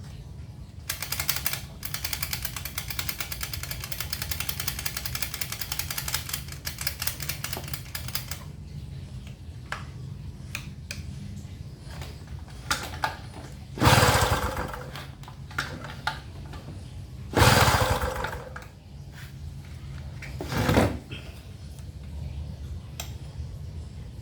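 Small gasoline engine of an inverter generator sputtering in a rapid, stuttering rhythm for several seconds without keeping running, followed by three loud short bursts. This is typical of an engine that catches but won't stay running while its fuel mixture is being adjusted.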